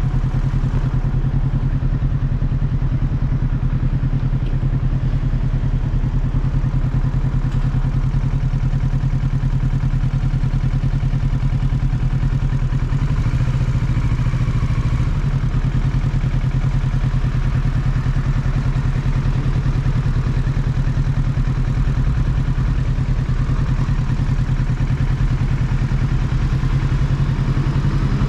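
2022 Kawasaki Ninja 650's parallel-twin engine idling steadily with the bike at a standstill.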